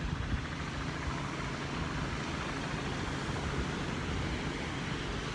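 Steady wind noise on the microphone: a low, unsettled rumble with a hiss over it.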